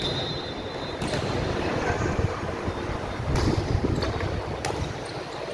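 A referee's whistle shrills and cuts off about a second in, signalling the serve. A volleyball is then struck a few times, sharp slaps about 3 and 4.5 seconds in, over the steady noise of the crowd in the gym.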